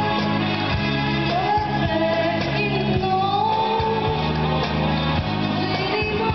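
Live band performance: a lead singer over drums and bass guitar, the sung melody sliding between notes over a steady beat.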